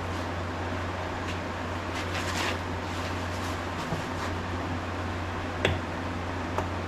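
A steady low hum, with soft squishing handling sounds about two seconds in and a few sharp clicks near the end, from greased wheel bearings and parts being handled by hand.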